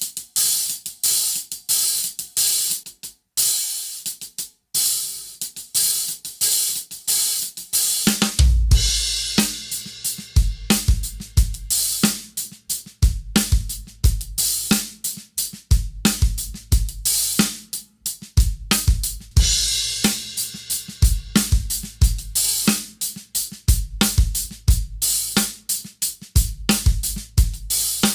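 Hi-hats (15-inch Zildjian Kerope) muffled by a face mask laid over their edge, which takes the sharp attack off the stick and gives a soft, warm, vintage hi-hat sound. They are played alone in quick steady strokes for about eight seconds, then the bass drum and snare join in a steady groove.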